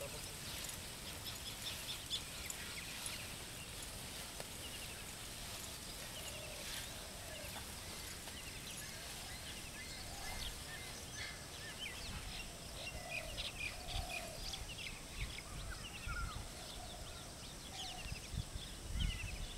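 Several birds chirping and calling over steady open-air background noise, with short high chirps throughout and some lower warbling calls. Brief low rumbles come in near the end.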